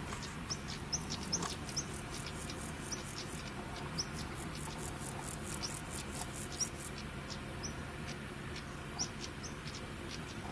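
Insects chirping in grassland: a fast train of high, hissy pulses that stops about seven seconds in, with short high chirps scattered throughout.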